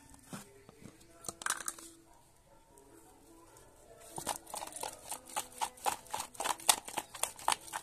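Koi fish (climbing perch) being shaken in a plastic bowl to coat them with turmeric. A couple of single knocks come first, then from about four seconds in a quick run of knocks against the bowl, about three a second.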